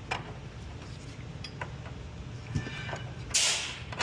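Line wrench working the brake line flare nut loose at the caliper: scattered light metal clicks and taps. A short, loud hiss about three and a half seconds in.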